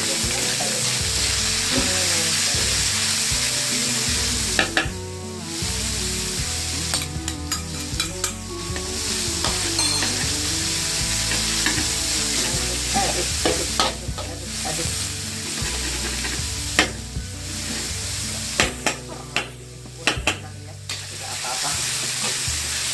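Minced pork, sliced Chinese sausage and garlic sizzling in hot oil in an aluminium wok, stirred continuously with a spatula that scrapes and clacks against the pan. A run of sharper clacks comes about three quarters of the way through.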